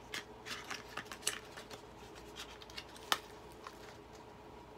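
Fingers and fingernails picking and scratching at the end flap of a small cardboard product box: a string of light scratches and clicks, with one sharper click about three seconds in.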